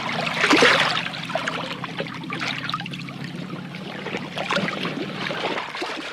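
Water trickling and splashing in quick irregular spatters, with a louder splash about half a second in, over a faint low hum.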